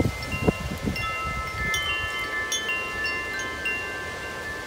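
Large tubular wind chime ringing in strong wind: several tubes are struck again and again, and their long tones overlap. Gusts buffet the microphone with low thumps in the first half second or so.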